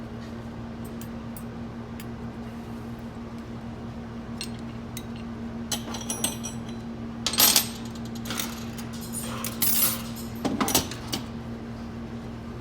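Metal transmission parts clinking and clattering as they are handled on a workbench, in scattered bursts that are loudest about halfway through and again near the end. A steady low hum runs underneath.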